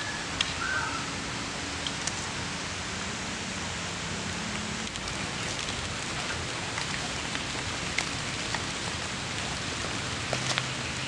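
Small wood fire burning under giant African snails roasting in their shells on a wire grill: a steady sizzling hiss with scattered sharp pops and crackles.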